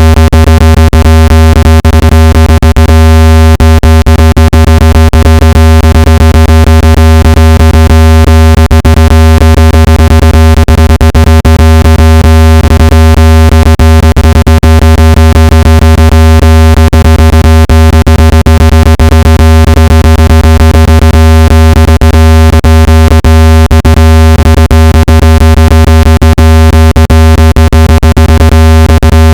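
Speaker water-ejection tone: a loud, steady, low-pitched electronic hum with a buzzy, distorted edge and scattered crackles. It is played at full volume so the vibration pushes water out of a phone or earbud speaker.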